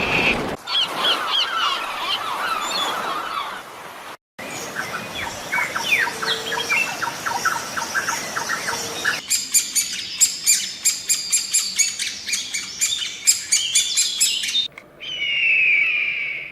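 Bird calls from several different birds, cut one after another: twittering and chirping, then a fast run of sharp, high chirps, then a falling screech near the end.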